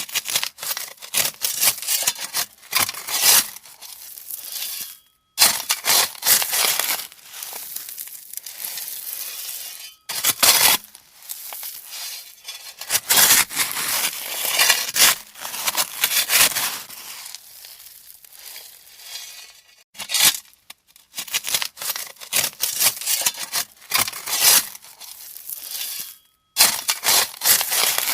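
A shovel digging into gravel and throwing it, over and over: a run of crunching, scraping scoops with a few short pauses between them.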